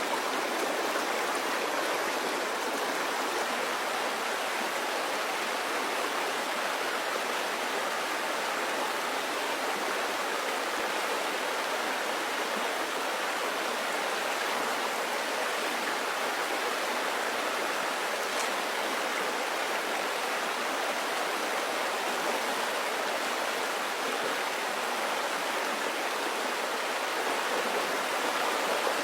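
Steady rushing of flowing water, an even hiss with no distinct splashes or other events.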